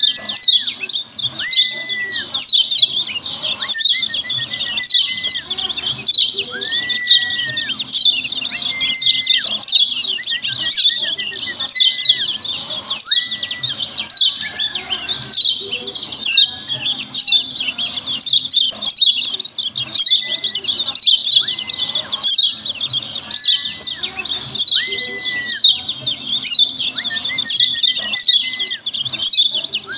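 Kecial kuning (a yellow white-eye) giving its rapid, busy 'ciak ciak' chirping call, shrill and continuous. A lower, longer whistled note recurs about every second or two.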